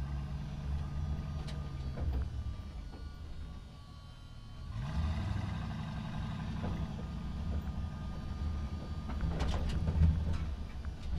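Truck driving through a parking structure, its engine rumbling with the echo of the enclosed space. The engine note falls away and quietens about three to four seconds in, then picks up again with a rising pitch about five seconds in. A cluster of sharp knocks or clatters comes near the end and is the loudest moment.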